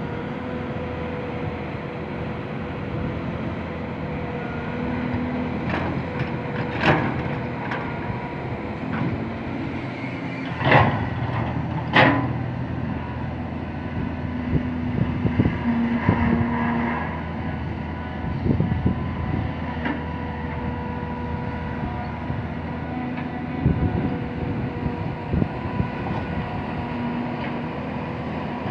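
Tracked hydraulic excavator's diesel engine and hydraulics running steadily with a steady tone as it digs and loads soil, louder at times under load. Three sharp knocks stand out about 7, 11 and 12 seconds in.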